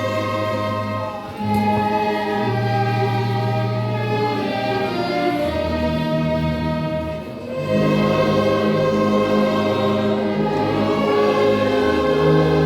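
A slow hymn played in long held chords by an ensemble, with a tuba sustaining low bass notes that change every couple of seconds.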